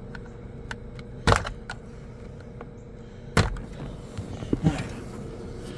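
Hand tools being picked up and handled: two sharp clacks about two seconds apart, then a few lighter clicks near the end, over a faint steady hum.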